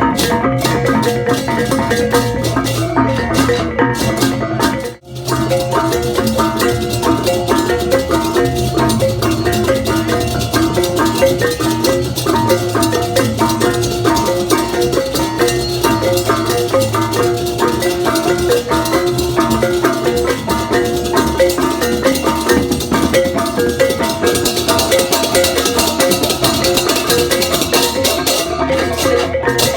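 Balinese gamelan: tuned metal percussion and drums playing a dense, busy pattern, with a brief break about five seconds in.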